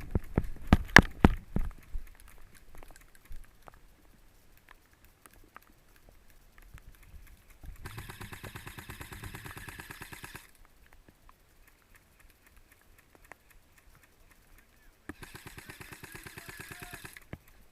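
Two long bursts of full-auto airsoft electric gun fire, each a rapid even rattle lasting about two and a half seconds, the first about eight seconds in and the second near the end. A few loud knocks in the first two seconds.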